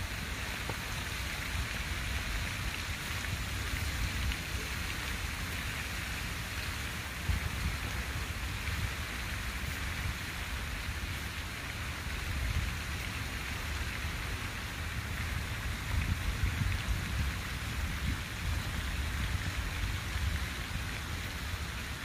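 Water fountain splashing steadily: a continuous hiss and patter of falling water, with a low rumble underneath.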